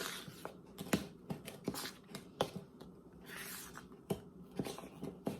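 A utensil stirring and working a thick, doughy cinnamon-roll mixture, with irregular clicks and knocks against the dish and a scrape about three and a half seconds in.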